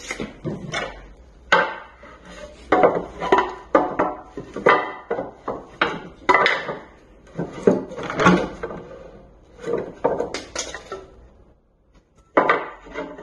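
Wooden boards, walnut among them, knocking and clattering against one another as they are pulled out of and set back into a pile of hardwood offcuts. The knocks come irregularly, one after another, with a short lull near the end.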